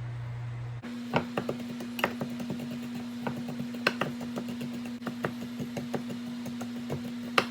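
Kitchen knife mincing garlic on a cutting board: quick, irregular taps of the blade on the board, several a second, with a few sharper knocks.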